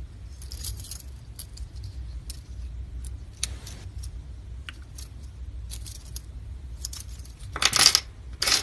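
Bracelet of metal pinback buttons linked by wire loops and jump rings clinking lightly as it is handled. A louder rattle comes twice near the end as it is laid down on a wooden table.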